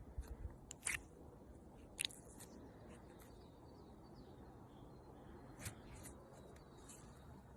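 Slime being handled, giving a few faint sticky clicks and pops, about a second in, at about two seconds and near the end.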